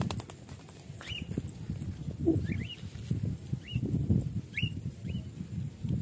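Wind buffeting the microphone in gusts, with about six short chirps from a small bird, each rising then dropping in pitch.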